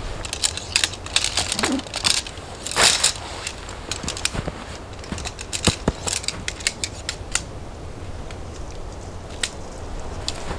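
Boots crunching through snow, then rustling nylon and clicking as a tent's pole bag and poles are handled and pulled out. The crunching and rustling are busiest in the first few seconds, with scattered sharp clicks after.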